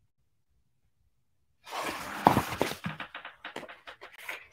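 Dead silence, then about a second and a half in, close handling noise: a hardcover picture book being moved and rustling near the microphone, with a few sharp knocks.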